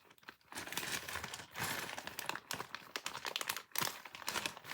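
Plastic packaging crinkling and crackling as it is handled, starting about half a second in.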